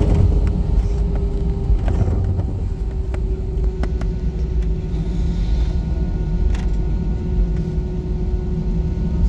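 Cabin noise inside an Airbus A320 taxiing: a steady low rumble with an engine hum that sinks slightly in pitch, and a few faint light clicks and knocks.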